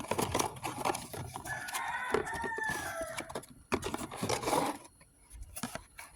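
A rooster crows once, a drawn-out call that drops in pitch at the end, over scattered clicks and rustling from handling packaging.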